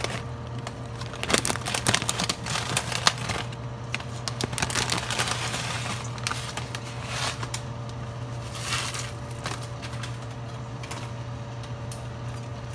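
Plastic packaging of a pack of rice noodles (bihon) crinkling and crackling as it is handled and opened, in quick irregular bursts. A steady low hum runs underneath.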